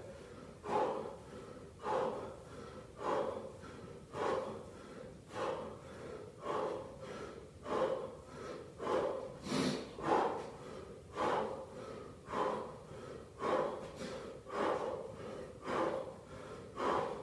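A man breathing hard from exertion while doing squats, a short forceful breath about once a second, in time with each squat.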